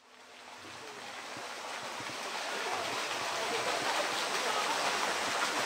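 Steady rush of running water with faint voices of a crowd mixed in, fading in from silence over the first two seconds or so.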